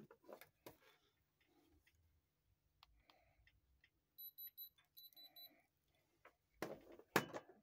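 Handheld diamond tester beeping in two short high-pitched bursts as its probe is held against the watch's sapphire crystal. Small handling clicks run throughout, and a louder clatter of handling comes near the end.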